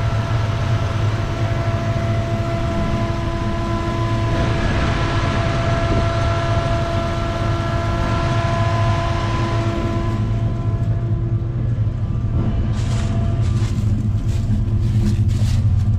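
Turbocharged 302 V8 in a 1987 Ford Ranger idling steadily: a constant low rumble with a steady whine above it. Near the end a few sharp ticks come through over the rumble.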